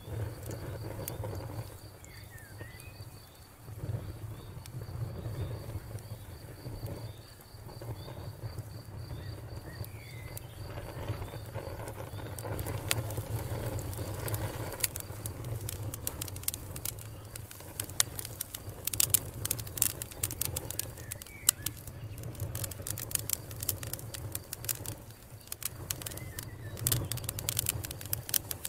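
Wood campfire crackling with sharp, irregular pops that come thicker and louder from about halfway through, over a low steady rumble. Birds chirp now and then, and a faint high trill runs through the first half.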